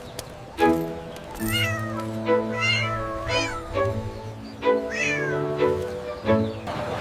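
A cat meowing about four times in short, sliding calls over background music of steady held notes.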